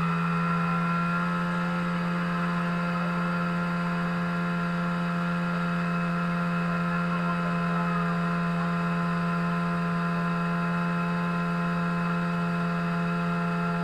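Portable fire pump's engine running steadily under load, pumping water out to the hose line, with one constant tone.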